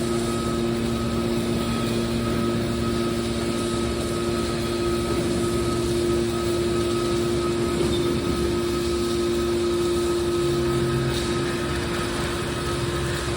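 Engine of a mobile car baler running steadily, a constant drone with a few held tones in it.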